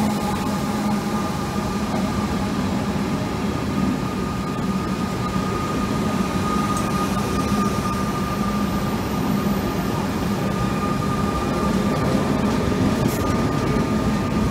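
Comeng electric suburban train running past close by: a steady rumble of wheels on rail and motors, with a steady low hum and a steady higher tone through it.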